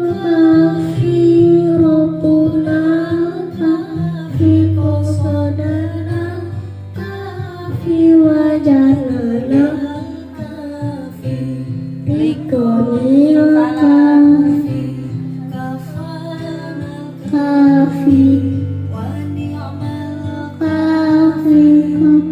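A sholawat song playing: a singing voice holds long, wavering melodic notes over instrumental accompaniment with a steady bass line.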